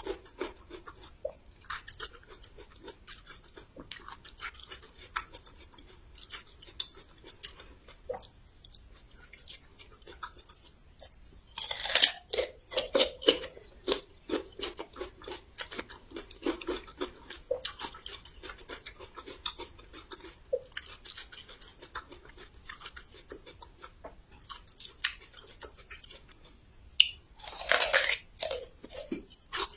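Close-up chewing of crunchy raw young ginger: steady crisp crunching, with louder bursts of crunching about twelve seconds in and again near the end, as fresh bites are taken.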